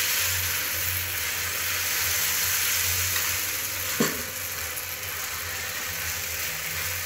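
Rice-and-drumstick-flower chila batter sizzling on a hot tawa greased with mustard oil: a steady frying hiss as the freshly poured batter cooks.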